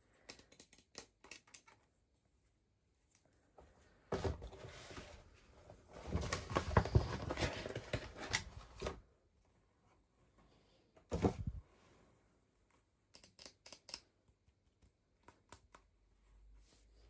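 Toy packaging being handled and opened: light clicks and taps, then a longer stretch of crinkling and tearing plastic or paper, a sharp crackle, and more small clicks.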